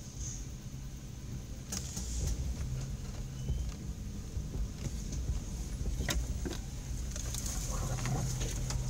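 Nissan Xterra engine running at low trail-crawling speed, heard from inside the cab, picking up a little about two seconds in. A few sharp knocks and rattles from the truck working over rough ground.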